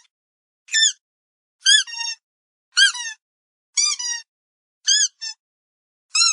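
Dog squeaky toy squeaked about once a second in short, high-pitched squeaks, some of them doubled.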